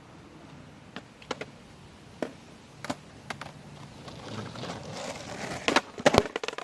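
Skateboard being ridden and flipped: sharp knocks of the board's tail and wooden deck, then the wheels rolling louder for a second or two, ending in a cluster of loud clacks as the board comes down near the end.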